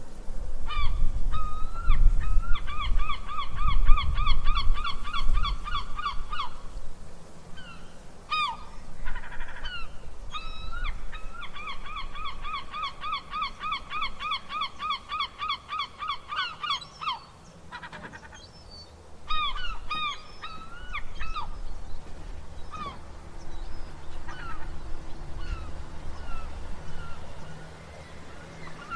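Gulls calling: two long runs of rapid repeated cries, about four a second, with single calls between them, over a low rumble.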